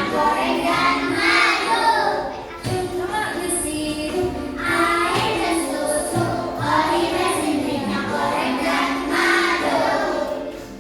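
Children singing a song together, in phrases that run on through the whole stretch, with music.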